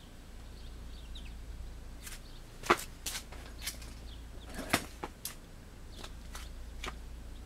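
Scattered light clicks and knocks of parts and tools being handled and set down, with two sharper knocks, one just under three seconds in and one just under five.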